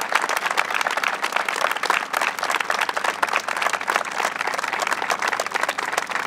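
Crowd of people applauding, many hands clapping steadily.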